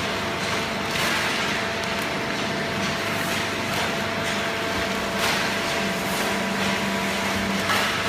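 Hydraulic cardboard baling line running: a steady industrial hum from the baler and its infeed conveyor, with a few short clattering knocks of cardboard and metal.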